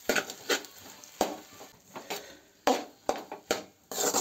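A ladle scraping and tossing cooked rice against a metal kadai as fried rice is mixed, in about nine uneven strokes roughly half a second apart.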